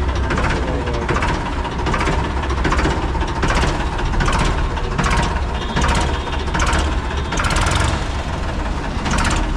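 Ford 3600 tractor's three-cylinder diesel engine running at idle with a steady diesel clatter and knock, just after being started on its self-starter.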